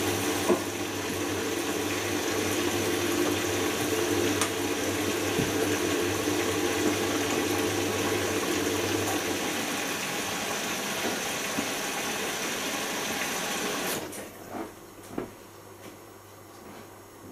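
Bosch Logixx washing machine taking in water through its inlet valve at the start of a wash, a steady rush of water with a low hum. The flow shuts off abruptly about fourteen seconds in, leaving a much quieter machine with a few soft knocks.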